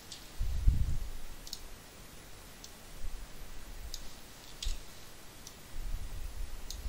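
Computer mouse clicking: about seven short, sharp clicks at irregular intervals. A dull low thump comes a little under a second in, and a low rumble near the end.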